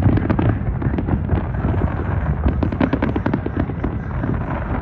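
Large fireworks display: many shells bursting at once in a dense, unbroken run of overlapping bangs and crackles over a heavy low rumble.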